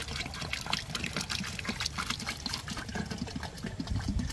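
Liquid phosphate fertilizer trickling from a plastic bottle into a drum of cow-manure slurry, splashing steadily as it pours in.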